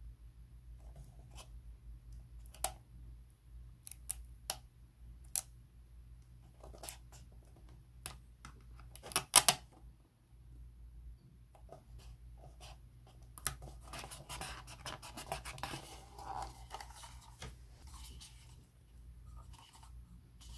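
Tweezers tips clicking and tapping against a hard plastic model cup as a sticker is worked into place, with the sharpest cluster of clicks about nine seconds in. A few seconds of scratchy rubbing follow as the sticker is smoothed down on the plastic.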